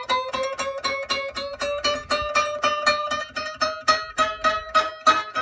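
A 5-inch pinned scroll saw blade being plucked over and over with a finger, about five twangs a second, each ringing a clear note. The note climbs steadily as the tension knob is tightened, the rising pitch telling the blade's tension until it is tight enough to cut.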